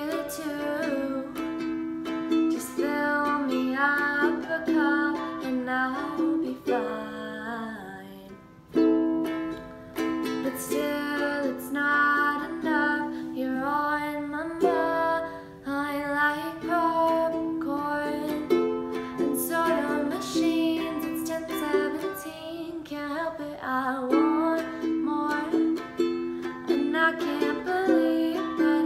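Ukulele strummed in chords while a woman sings over it, with a brief drop in the playing about eight seconds in.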